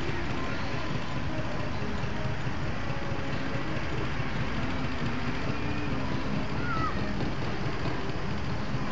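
Steady city street noise: road traffic running continuously, with a faint murmur of voices underneath.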